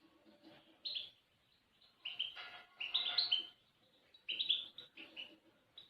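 Small songbirds chirping and twittering in short bursts of quick high notes, with brief pauses between bursts.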